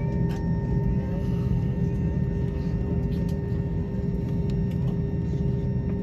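Cabin noise of an Airbus A321-231 taxiing with its IAE V2500 engines at idle: a steady low rumble with a steady engine whine of several held tones above it, heard from inside the cabin.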